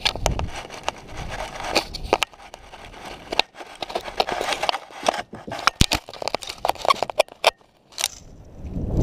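A prairie dog handling a GoPro at close range: its fur rubs and its claws scratch against the camera housing, giving irregular scrapes and sharp clicks with a short lull near the end.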